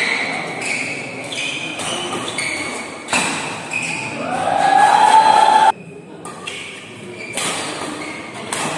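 Badminton rally: sharp racket strikes on the shuttlecock and short shoe squeaks on the court floor. Midway comes a loud, long shout that rises in pitch and then cuts off suddenly.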